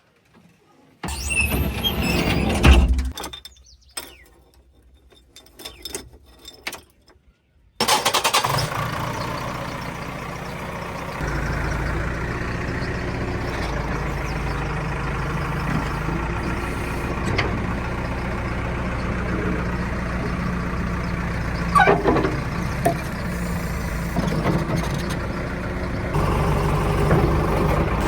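Heavy diesel machinery engine running. The sound cuts in and out during the first several seconds, then runs steadily from about eight seconds in.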